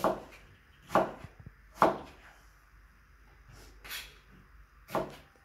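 Kitchen knife chopping onions on a cutting board: single sharp chops about once a second, five in all.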